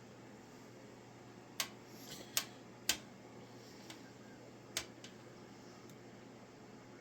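Sharp clicks and taps of small tools and wire being handled on a workbench: four louder clicks spread over about three seconds and a couple of faint ones, over a faint steady hum.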